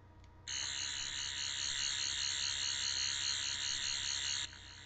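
Toy replica of the 11th Doctor's sonic screwdriver, in extended mode, playing its standard TV-series sound effect through its small speaker. The sound is a high-pitched, warbling electronic whir that starts about half a second in and drops to a softer level near the end.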